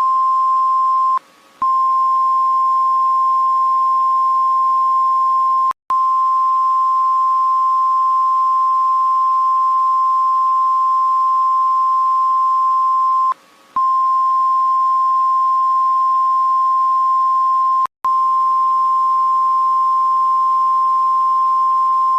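Emergency alert system alarm tone: a single steady beep held on and on, broken only by four short gaps.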